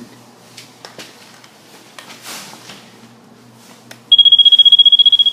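A loud, high-pitched electronic beep with a fast buzzy warble, sounding once for about a second and a half, starting about four seconds in, after a few faint clicks of handling.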